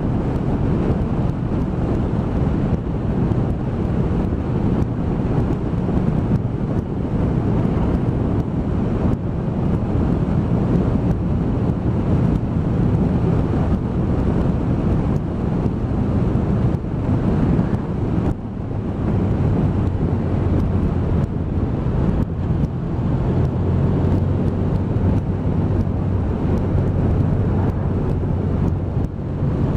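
Wind rushing over the microphone at road speed, over the steady running of a Honda VFR1200F's V4 engine. The level dips briefly about two-thirds of the way through, after which a low, even engine note stands out more clearly.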